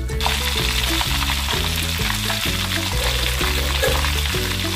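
Flour-and-egg-coated chicken pieces deep-frying in plenty of hot oil in a wok: dense sizzling and crackling that gets louder just after the start. Background music with a stepping bass line plays underneath.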